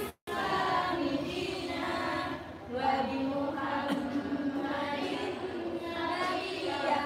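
Voices chanting a prayer together in a sing-song melody, with held and gliding notes. The sound drops out for a split second right at the start.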